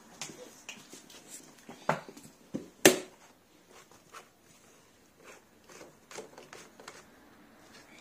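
Scattered clicks and knocks as the metal wand and hose of a Numatic Henry vacuum cleaner are handled with its motor switched off; the sharpest knock comes about three seconds in.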